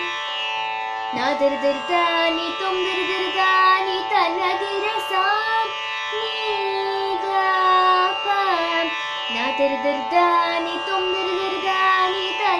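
A girl singing a Carnatic thillana in raga Valaji over a steady drone, her voice coming in about a second in and gliding and wavering between notes in long sung phrases.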